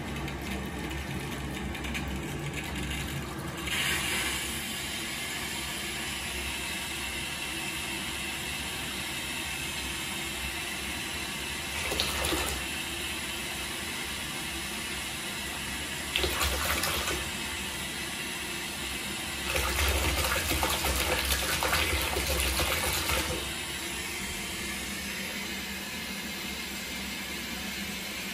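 Shallow bathwater splashing as an F2 Savannah cat paws and smacks at it in a bathtub: three short bursts, then a longer run of splashing lasting about four seconds past the middle, over a steady hiss.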